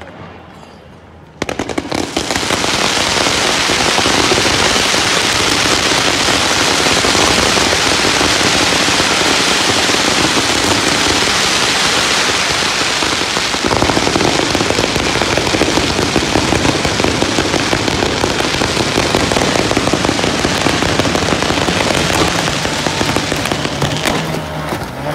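Fireworks going off in a loud, dense, continuous crackle, a rapid rattle of small bangs that starts about a second and a half in, gaining more low-end weight about halfway through.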